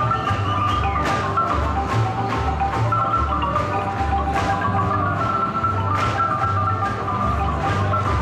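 Marimba music for a Mexican folk dance, with quick repeated mallet notes over a steady bass beat and regular sharp knocks.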